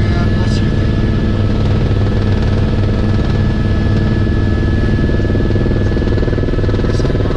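Helicopter cabin noise in flight: the engine and rotor make a loud, steady drone with a thin, steady whine above it.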